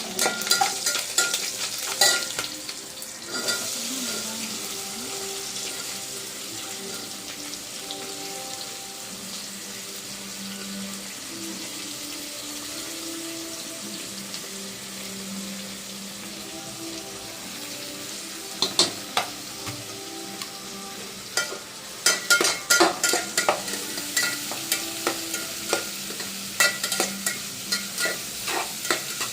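Food frying in hot oil in a pan, a steady sizzle, with a spoon stirring and clicking against the pan in bursts near the start and over the last several seconds.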